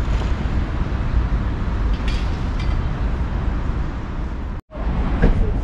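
Steady outdoor traffic noise from a nearby road, heavy in the low end, cutting out for an instant about four and a half seconds in.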